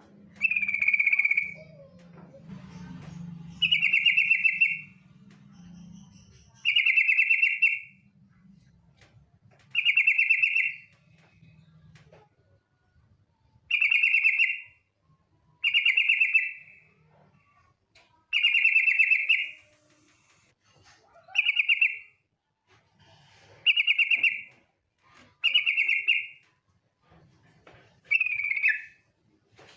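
Yellow-vented bulbul (trucukan), a female by the title, giving a chattering trilled call about a second long, repeated about every two to three seconds, eleven times in all: the female's call to a male.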